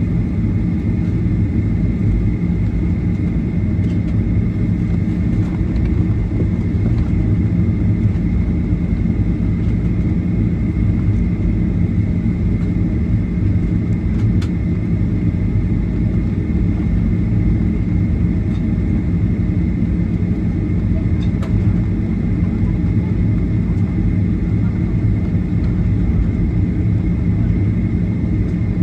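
Airliner cabin while taxiing: a steady low rumble of the engines and airframe with a thin, steady high whine above it, level and unchanging throughout.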